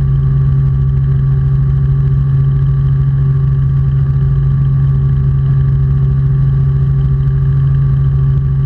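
Robinson R44 Clipper II helicopter in cruise heard from inside the cabin: the steady hum of its six-cylinder piston engine with the fast, even beat of the rotor underneath, unchanging throughout.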